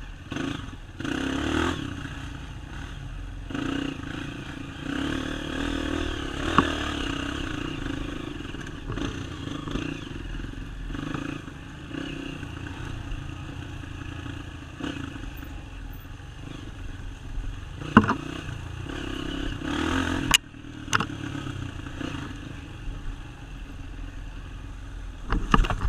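Dirt bike engine running on a trail ride, its revs rising and falling, with a few sharp clacks and knocks from the bike working over rough ground.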